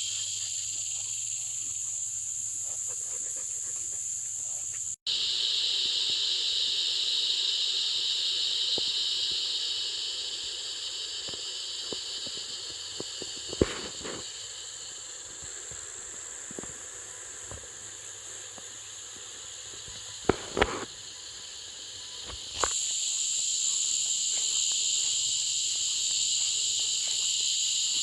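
A steady high-pitched chorus of insects, fading back for a stretch midway and then rising again, with a few sharp knocks.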